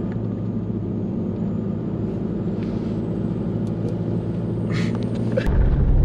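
Steady engine and road hum inside a moving car's cabin. About five and a half seconds in it switches abruptly to a louder, rougher low rumble of tyres on a gravel road.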